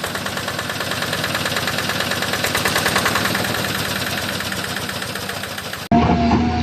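Truck engine running with a rapid, steady knocking beat, cutting off abruptly near the end and giving way to a different sound with a steady tone.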